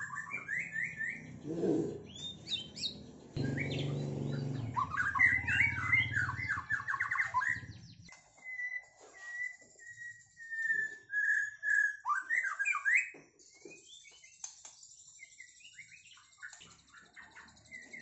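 Caged white-rumped shama singing: quick chirped phrases, a long steady whistled note about eight seconds in, then more chirps. A low rumble underneath stops abruptly about eight seconds in.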